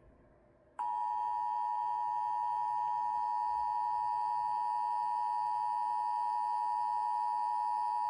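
Emergency Alert System two-tone attention signal: the 853 Hz and 960 Hz tones sounded together as one steady, loud tone that starts just under a second in, warning of an alert about to be read, here a flash flood warning.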